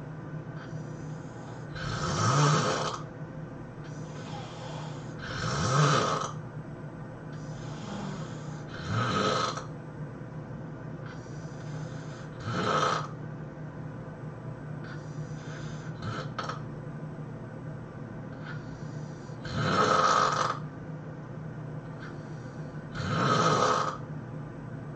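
A sleeping person snoring loudly. A rough, rattling snore comes about every three to four seconds, each one led by a softer breath, with a longer pause in the middle.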